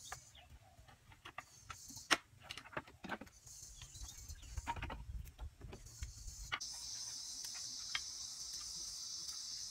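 Scattered light knocks and clicks of bamboo pieces being handled and fitted, with insects calling in short bursts. About two-thirds of the way through, a steady high insect drone sets in and continues.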